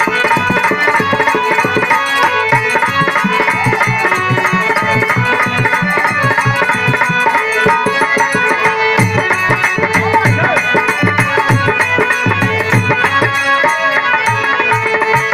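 Instrumental interlude of birha folk music: a hand drum playing a fast rhythm under steady held melody notes.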